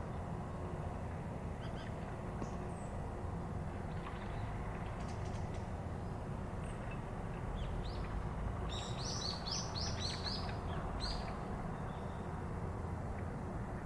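A small bird gives a quick run of about six short, high chirps about nine seconds in, with a few faint ticks before it, over a steady low rumble.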